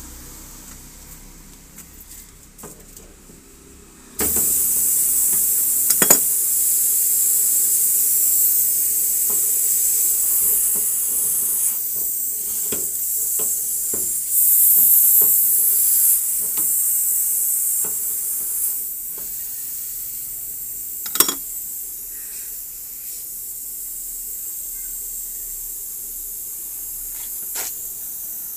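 Pressurised R32 refrigerant gas hissing out at the charging hose and service valve fittings of a split air conditioner's outdoor unit, starting suddenly about four seconds in and easing a little later on. A few sharp metallic clicks from a spanner on the fittings.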